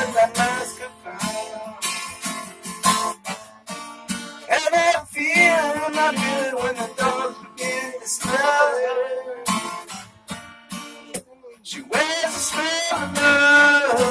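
Acoustic guitar strummed with a man singing along; the voice drops out for a couple of seconds about ten seconds in, then comes back strongly near the end.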